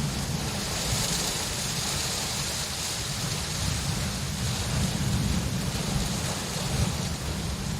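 Steady rain falling, a continuous hiss with a low rumble underneath.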